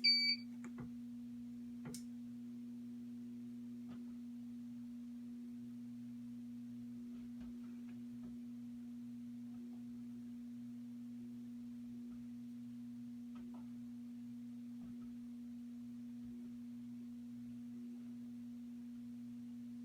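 A short high beep from the fire alarm control panel, then a steady low electrical hum with a few faint clicks.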